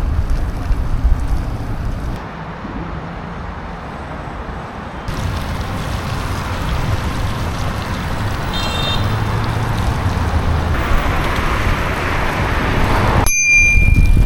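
Road and wind noise while riding a bicycle along a wet city street with motor traffic around, a steady rushing haze. A short high tone sounds a little past halfway, and a steady high electronic tone comes in just before the end.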